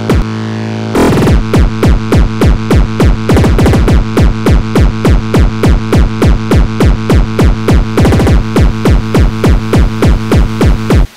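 Frenchcore electronic music: held distorted synth chords, joined about a second in by a distorted kick drum that falls in pitch on every hit, about three kicks a second, with a brief break near the end.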